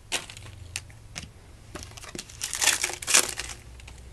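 Crinkling and rustling of trading cards and their packaging being handled: a few light clicks, then a denser burst of crinkling from about two and a half to three and a half seconds in.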